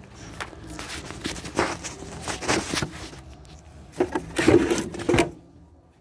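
Irregular clicks, knocks and rattles of hand tools and car parts being handled in an engine bay. The loudest cluster comes about four seconds in, and it stops abruptly near the end.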